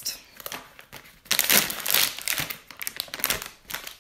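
A plastic snack bag of pretzel snacks crinkling as it is handled and opened. The loudest stretch of crackling comes in the middle.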